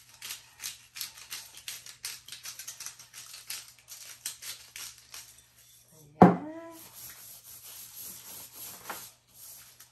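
A hand-held black pepper grinder being twisted, giving a rapid run of gritty clicks for about five seconds. About six seconds in comes a sharp knock as it is set down on the table, then gloved hands rubbing the pepper into the ribs.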